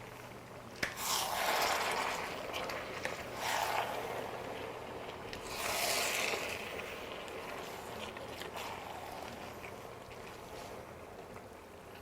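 A utensil scraping and stirring food in a cooking pot, with a sharp knock a little under a second in, then three rough spells of scraping that die away later.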